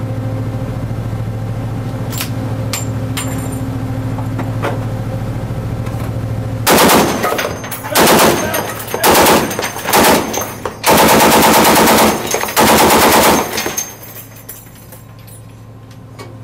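Automatic gunfire fired from a ship's deck: six bursts in quick succession starting about seven seconds in, the last ones the longest. Before the shooting there is only a steady low hum.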